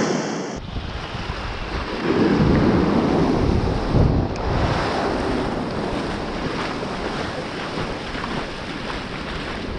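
Small surf waves breaking and washing in the shallows, with wind buffeting the microphone; louder from about two to four seconds in.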